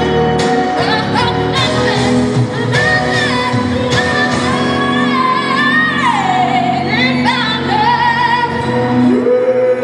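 A young girl singing a pop song solo into a handheld microphone over backing music, holding long notes with vibrato, with one held note falling in pitch a little after the middle.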